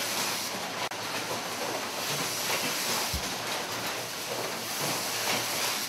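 Steady hiss with a low rumble from cleanroom machinery and air handling running continuously.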